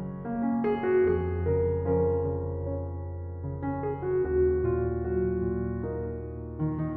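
Background music: a gentle piano piece, slow chords and melody over held bass notes.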